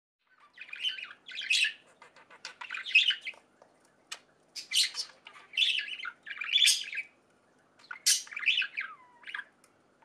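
Budgerigars chirping and chattering in a string of short, quick bursts, with a brief falling whistle near the end.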